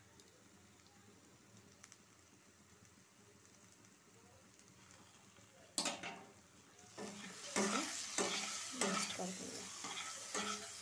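Steel spatula stirring chicken kebab pieces through sizzling masala in a nonstick pan. It starts faint, then a sharp knock comes about six seconds in. After that come repeated scraping strokes against the pan over a louder sizzle.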